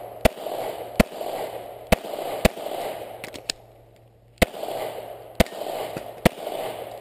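Glock pistol firing a string of about eight shots, roughly a second apart, with a longer pause about three seconds in, while a competitor shoots a USPSA stage.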